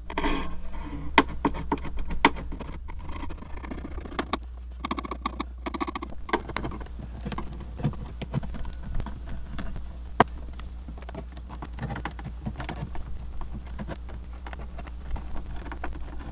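Old adhesive from a foam weather-stripping hatch gasket being scraped and peeled off the smooth epoxy-coated rim of a kayak hatch. The scrapes come as irregular scratches and clicks, with a few sharper ticks, as the old gasket is cleared so a new one can bond.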